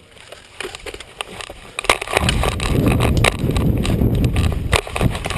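A few scattered sharp clicks, then from about two seconds in a loud rumble of rubbing and footfall noise, with a few sharp knocks, on a body-worn camera microphone as the player moves.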